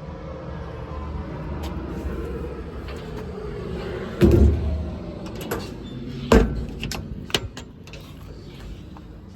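Two heavy metal bangs about two seconds apart, then lighter clicks and knocks, like the steel compartment doors of a truck's service body being shut and latched.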